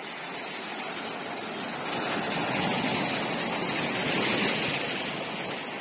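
Sea waves washing onto a beach: a steady rush of surf that swells about two seconds in and eases off near the end.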